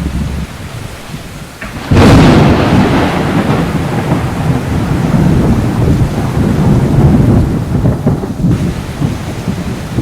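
A thunderstorm: steady rain, then a sudden loud thunderclap about two seconds in that rolls on as a long, low rumble over the rain.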